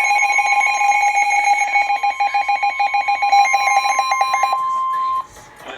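Emergency Alert System attention tone: a loud, steady two-tone alarm. The lower tone breaks into rapid pulses and stops first, and the whole signal cuts off suddenly about five seconds in.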